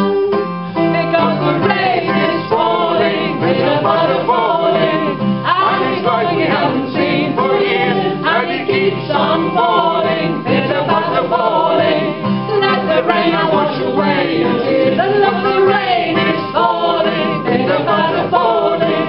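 Folk song: singing over plucked acoustic string accompaniment.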